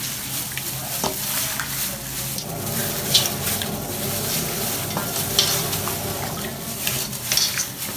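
Seasoned raw chicken pieces being mixed by hand in a stainless steel bowl with a little water: a continuous wet, sloshing, squelching noise, with a few sharp knocks against the bowl, the loudest about three seconds and five and a half seconds in.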